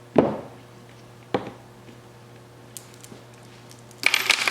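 Small steel parts being handled on a workbench: two sharp metal knocks, then near the end a dense jingling rattle like loose rollers from the overdrive's one-way clutch being tipped or stirred together. A faint steady hum sits underneath.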